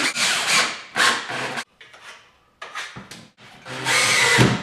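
Cordless drill driving screws through shelf-support brackets into the wall studs, running in several short bursts with a pause partway through and a longer run near the end.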